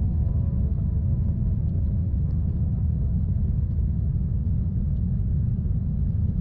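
Steady low rumble of a jet airliner's engines and airflow, heard inside the cabin during the climb after takeoff.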